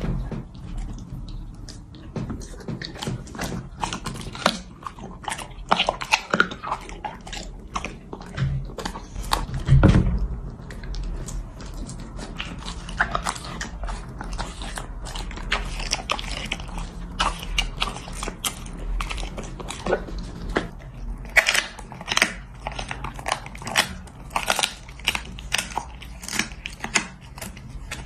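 Dog eating raw beef and beef trachea from a plate: repeated wet chomping and crunching bites, with one loud knock about ten seconds in.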